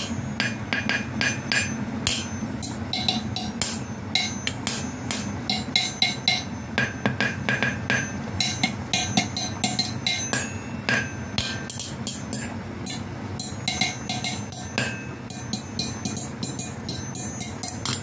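A metal fork tapped over and over against a covered stainless-steel cooking pot and its glass lid, making quick ringing clinks in an uneven rhythm over a steady low hum.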